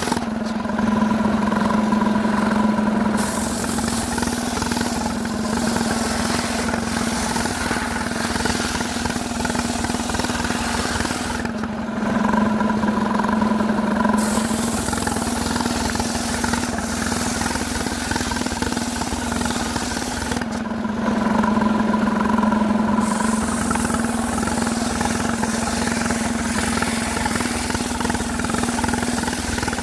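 Chainsaw running steadily at high speed while cutting jackfruit wood, its tone held at one pitch. About every nine seconds the rasping cutting noise drops away for a couple of seconds while the engine note swells.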